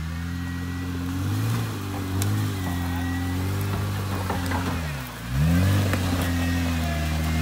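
Jeep Wrangler's engine working at low revs as it crawls up a steep dirt climb. There are two short throttle blips in the first few seconds; about five seconds in the revs sag low, then climb back sharply and louder.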